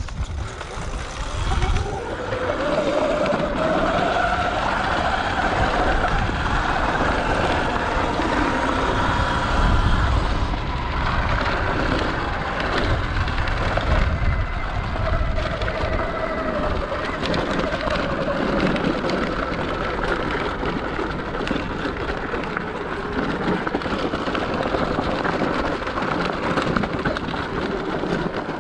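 Sur Ron X electric dirt bike riding down a loose rocky trail: tyres crunching and rattling over stones the whole way, with a faint whine from the electric drive that rises and falls.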